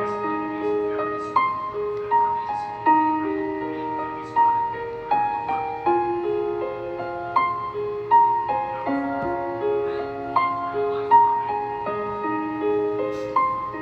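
Gentle piano music: notes struck about once or twice a second, each ringing on and fading while the next one comes in.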